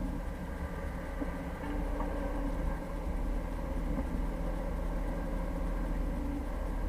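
Jeep Cherokee engine running steadily at low revs with a continuous low hum, as heard while the vehicle is driving.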